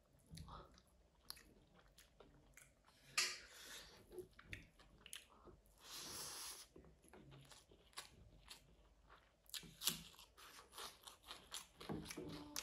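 Close-miked chewing and mouth sounds of a person eating rice and curry by hand: many short wet clicks and smacks, with two longer rustling sounds about three and six seconds in.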